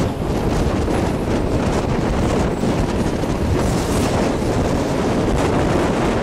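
Wind buffeting the microphone held out of a moving train's window, over the steady running noise of the coaches on the track.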